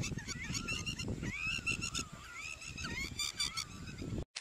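Birds calling over and over: short calls that rise and fall, mixed with fast, high, repeated chirps, over a low background rumble. The sound cuts out for a moment near the end.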